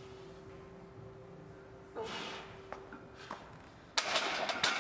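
A lifter's sharp exhaled breath about two seconds in. Near the end comes a loud metallic clank and rattle as a loaded barbell is set back into the squat rack's hooks, with the iron plates ringing.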